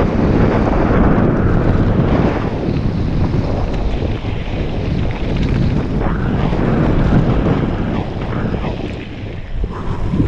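Wind buffeting a helmet-mounted camera's microphone on a descending mountain bike, mixed with the tyres rumbling and rattling over a dirt and gravel trail. It eases a little near the end as the bike rolls onto grass.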